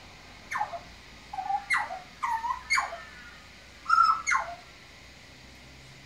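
Australian butcherbird singing a phrase of about seven clear, fluting notes, several of them sliding steeply down in pitch, with a pause between groups.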